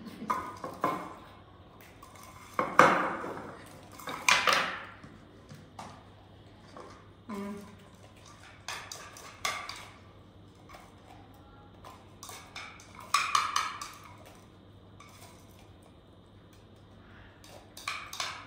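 A utensil clinking and scraping against a dish in separate bursts, the loudest about three, four and thirteen seconds in, with smaller clicks between.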